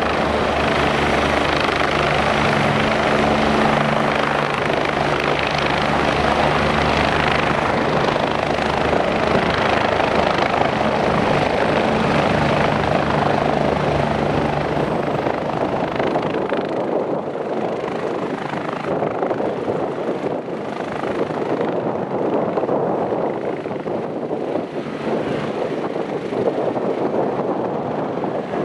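BK 117 twin-turbine rescue helicopter landing: loud rotor beat and turbine noise, with steady low rotor tones under a broad rush. About halfway through, the low rotor tones drop away abruptly and a lighter rushing noise remains.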